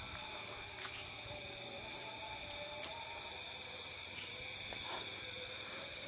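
Night insect chorus: crickets and other insects trilling steadily at several high pitches, one of them in rapid repeated chirps, with a few faint clicks.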